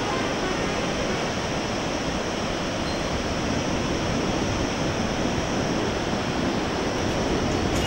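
Steady rush of a whitewater river flowing through the gorge far below.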